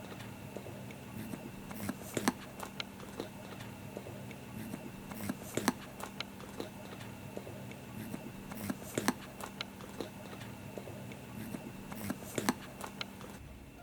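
Holland Lop rabbit making short, irregular clicking sounds, with a louder click every three to four seconds.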